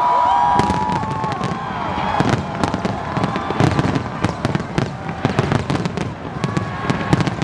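Fireworks display: many sharp bangs and crackles in quick succession. Held shouts from a crowd come through over the first second or so.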